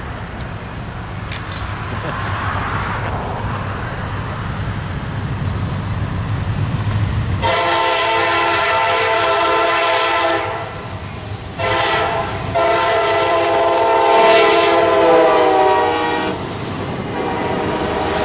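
Norfolk Southern SD60M diesel locomotive approaching with a low engine rumble, then sounding its air horn as a loud chord about seven and a half seconds in: a long blast, a pause of about a second, then a second, longer blast. After the horn the locomotive and the autorack cars behind it roll close past, engine and wheels rumbling.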